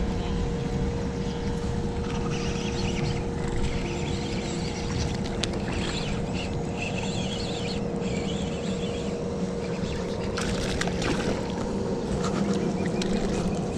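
Steady rumble of the river running below a hydroelectric dam, with a constant hum underneath. Scattered splashing comes in through the middle and again near the end as a hooked skipjack herring thrashes at the surface.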